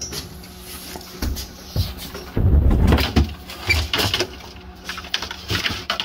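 Plastic refrigerator interior parts being handled: scattered knocks and clunks, with a louder scraping rustle about two and a half seconds in.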